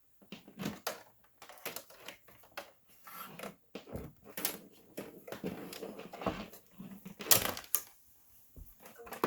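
Irregular clicks, knocks and rattles of plugs and power cords being handled while a dim bulb tester is taken out of an amplifier's mains circuit. The loudest knock comes about seven seconds in.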